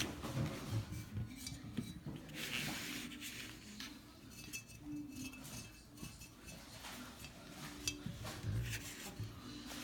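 Light, scattered clicks, taps and scrapes of a paintbrush working on a terracotta Chia Pet figure, a paper plate and a tabletop.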